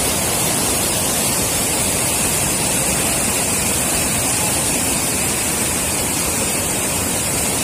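Swollen river in flood, muddy water pouring over a rocky drop and churning in a steady rush.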